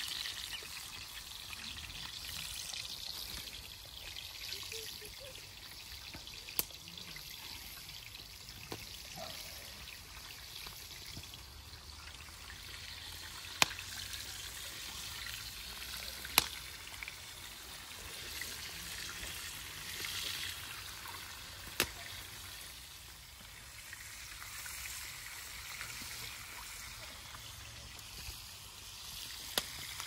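Fish frying in hot oil: a steady sizzle with a few sharp pops now and then.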